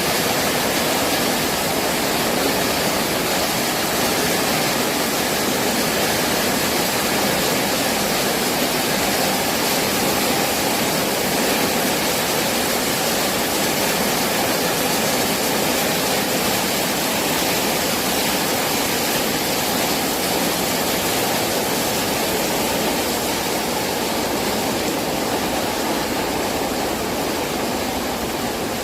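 Heavy rain falling steadily: a dense, even hiss with no single drops or gusts standing out.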